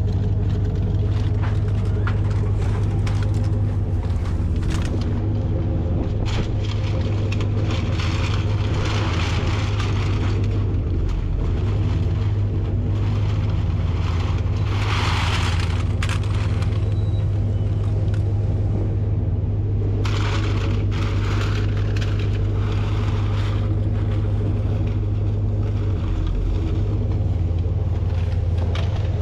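Loose aluminum cans clattering and rattling as they are dumped out of bags, in irregular spells, loudest about halfway through. A steady low machine hum runs underneath.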